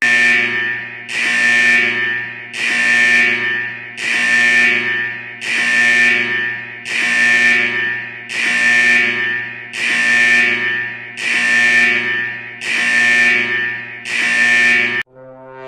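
Emergency-alert alarm tone: a buzzy, steady-pitched beep repeating eleven times, each about a second long with short gaps. Near the end it gives way to a different, lower tone.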